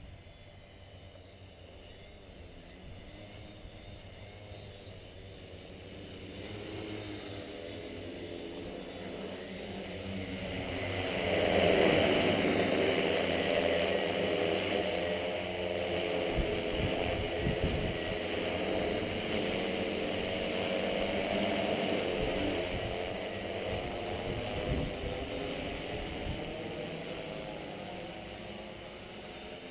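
Tarot T960 hexacopter's six electric motors and propellers humming in flight, growing louder as it approaches, loudest as it passes overhead about twelve seconds in, then fading as it flies away.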